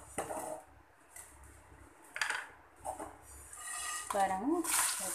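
A wooden spatula scrapes dry-roasted dal and dried red chillies around a nonstick pan with a few knocks. Near the end the pan is tipped over a steel plate and the dry grains rush and rattle onto it.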